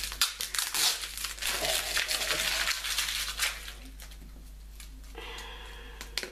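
Packaging crinkling and sellotape tearing as a taped shipping container is opened, busiest over the first three seconds or so and quieter after.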